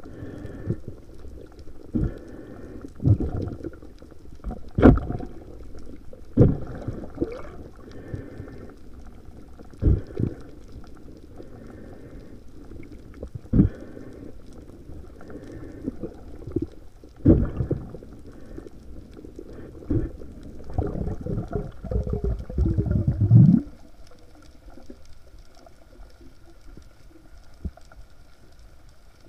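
Underwater sound picked up by a camera in a waterproof housing during a spearfishing dive: a dull hum broken by irregular muffled knocks and thumps, every one to three seconds, from the diver's gear, then a longer rumbling stretch about two-thirds through before it settles to the hum.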